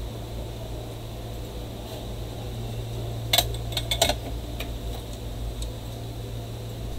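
Light clicks and clinks of a small circuit board and tools being handled on a workbench, a short cluster about three to four seconds in, over a steady low hum.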